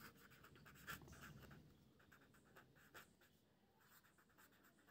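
Faint scratching of a pen writing on paper, mostly in the first second and a half, followed by a couple of light taps.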